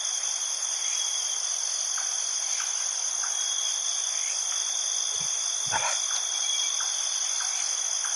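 Steady night chorus of insects at two high pitches, with faint short chirps scattered through it. A brief dull thump sounds about five and a half seconds in.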